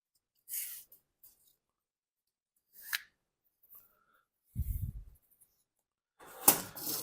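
Intermittent handling sounds of a chainsaw's recoil starter rope and spool being worked by hand: short rubbing and scraping, with dull bumps about four and a half seconds in and a louder bump with scraping near the end.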